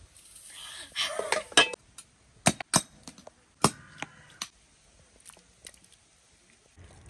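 A kitchen knife clicking and scraping against a small plastic buttermilk bottle as its top is cut open. There is a short rustling scrape about a second in, then a handful of sharp clicks and taps over the next few seconds.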